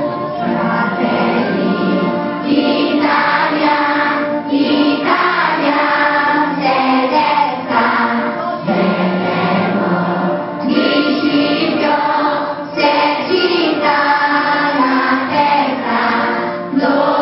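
A large group of young schoolchildren singing a song together, in phrases separated by short breaths.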